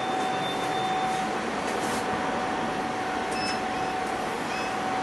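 Steady hum and hiss of an elevator car, with a constant mid-pitched whine and a brief higher tone about a second in.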